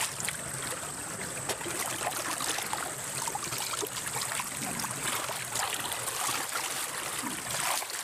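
Shallow muddy stream water rushing and splashing around a person in a ghillie suit lying in it, with many small irregular splashes over a steady wash. A steady high-pitched whine runs underneath.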